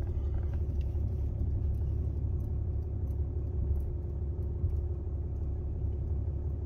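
Vehicle engine running, a steady low rumble with a steady hum, heard from inside the cab.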